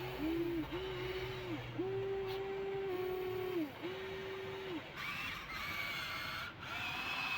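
Huina 1593 RC excavator's electric motors whining in four short runs, each rising to a steady pitch and dropping away as it stops. About five seconds in, a higher-pitched motor whine takes over, its pitch stepping up and down.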